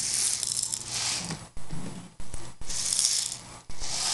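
Loose plastic airsoft BBs rattling as they are shaken in short bursts, four or five shakes with brief pauses between them, while loading a spring airsoft pistol.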